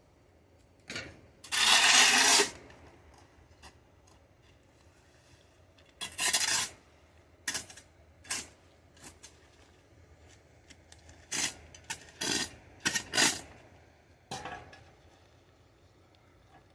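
Shovel blade scraping over dirt on a concrete slab, in separate strokes with pauses between them. The longest and loudest stroke comes about two seconds in.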